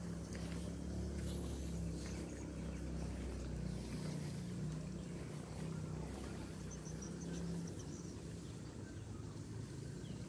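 A low engine drone that rises and falls, with a deeper rumble under it that fades about four seconds in. Leaves and brush rustle with small cracks throughout, and a short series of high bird chirps comes a little past halfway.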